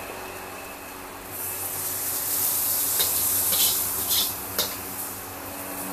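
Stir-fry sizzling in a hot wok as it is ladled out onto a plate, the hiss swelling about a second in, with a few short clicks and scrapes of the metal ladle against the wok.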